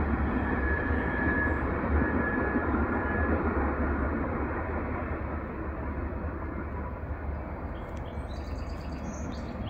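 Empty ethanol tank-car freight train rumbling away into the distance, its noise slowly fading, with a faint thin squeal in the first few seconds. Faint bird chirps near the end.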